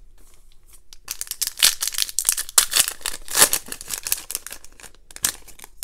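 Foil wrapper of a Donruss Optic football trading-card pack crinkling and tearing as it is ripped open. It starts about a second in and lasts a few seconds, with one more short crackle near the end.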